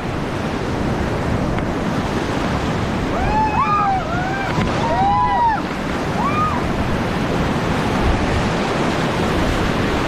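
Rushing whitewater of a Ganges rapid crashing around an inflatable raft, with wind buffeting the microphone. Several short shouted calls from voices on the raft come between about three and six and a half seconds in.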